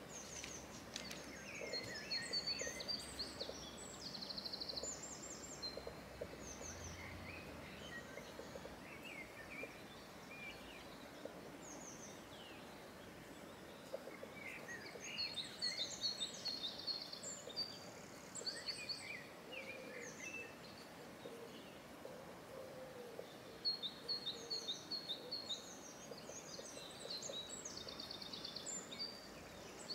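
Small songbirds chirping and trilling in three bouts, near the start, in the middle and toward the end, over faint outdoor background hiss.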